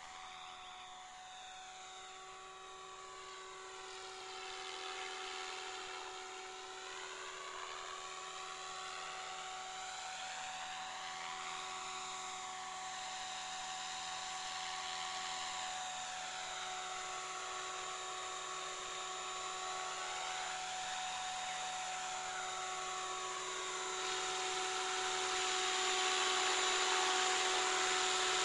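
Align T-Rex 550E electric RC helicopter in flight: a steady high whine from its electric motor and spinning rotors that grows louder as it comes closer, most of all in the last few seconds.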